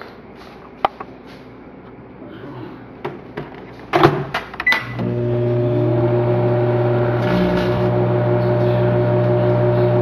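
Clicks and knocks as the microwave oven is shut and set, with a short beep, then about five seconds in the microwave starts running with a steady, loud electrical hum.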